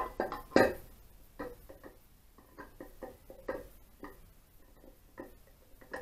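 Motorcycle engine crankcase half being handled and offered up onto the crankshaft: a series of light metallic knocks and clinks, the loudest pair about half a second in, then lighter taps every half second or so. The crankcase is being fitted to check the crankshaft's end float.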